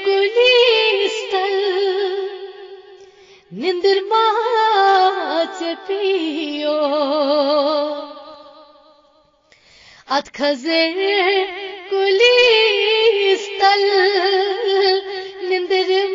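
A woman singing a Kashmiri Sufi kalam, long held notes with vibrato in drawn-out phrases. The voice fades almost to silence about nine seconds in, then starts a new phrase a second later.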